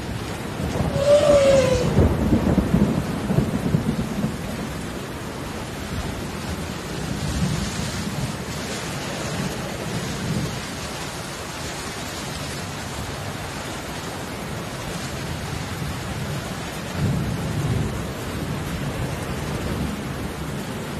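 Steady hiss of rain, with uneven low rumbling that is loudest in the first few seconds and swells again near the end. About a second in there is one short falling cry.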